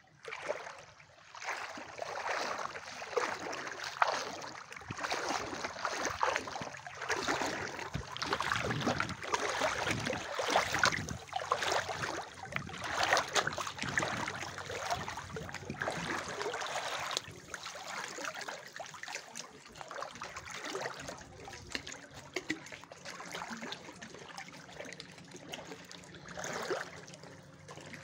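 Seawater lapping and sloshing in irregular small splashes, busier in the first half and quieter toward the end.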